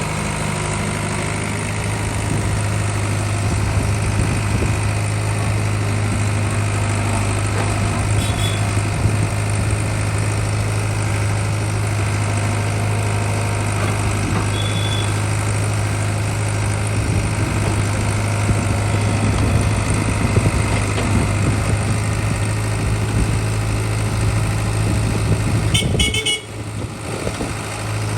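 Heavy diesel engine running steadily, with a few short high vehicle-horn toots. The low engine sound drops away for about a second near the end.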